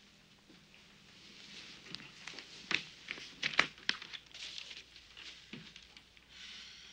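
Sheets of paper being handled and rustling, with a few sharp crackles.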